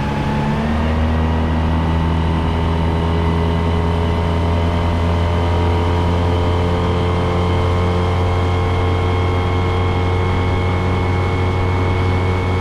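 An engine running steadily; its note steps up once just under a second in, then holds an even pitch.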